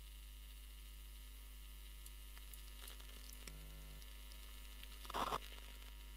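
Quiet handling with a few light ticks, then about five seconds in a short crinkle of a plastic anti-static bag being picked up.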